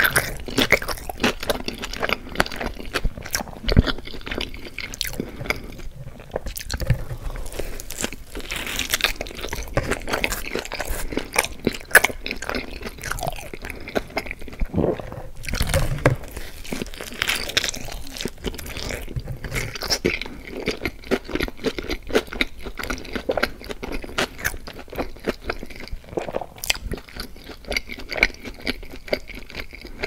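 A person biting and chewing cheese and jalapeño pizza close to the microphone: a steady run of crust crunches and mouth sounds, with a heavier bite about halfway through.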